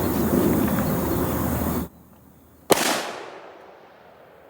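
A single gunshot from a Desert Eagle pistol firing .44 Magnum: one sharp crack with a fading echo, about two-thirds of the way through. Before it, a steady rushing background noise cuts off abruptly a little under two seconds in.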